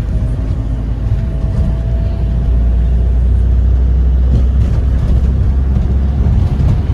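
Steady low rumble of a car moving through city traffic, heard from inside the cabin, with a faint thin whine running through it.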